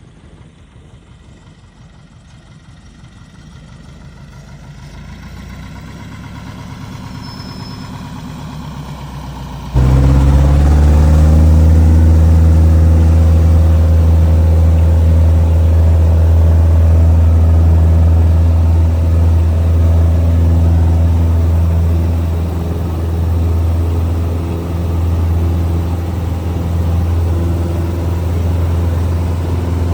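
Small bush plane's engine approaching, growing steadily louder for about ten seconds. It then jumps suddenly to a loud, steady, deep engine drone that continues.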